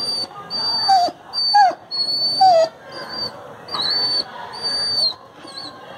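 Dog whining and whimpering in pain from a broken front leg: a string of high-pitched whines, one after another, with a few short falling yelps in the first half.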